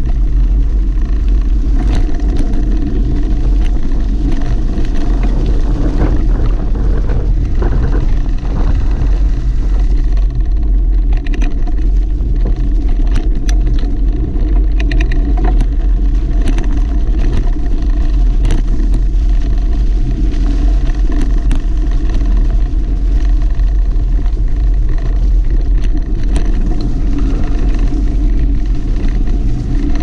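Wind and ride rumble buffeting a bicycle-mounted action camera's microphone as the bike rolls over a rough dirt track. Scattered sharp knocks and rattles come from the bike and mount jolting over bumps, most often in the middle of the stretch.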